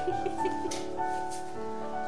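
Slow piano music on a digital piano: a melody of held notes over sustained chords.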